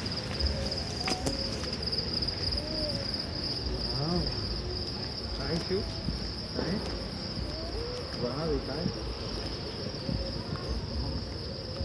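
Crickets chirping: a steady, high, finely pulsed trill that never breaks, with faint voices underneath.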